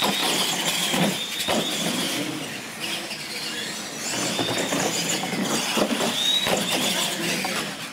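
Radio-controlled monster trucks racing flat out on a concrete floor: a high motor and gear whine with tyre noise, and several sharp knocks as they bounce and hit the ramps.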